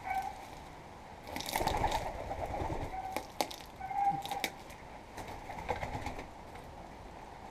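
Domestic pigeons cooing, a few short low coos, mixed with a louder spell of rustling and wing flapping from the birds in the coop.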